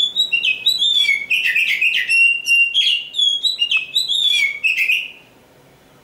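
Oriental magpie-robin (kacer) singing a loud, varied song of whistled phrases and quick runs of notes, stopping about five seconds in.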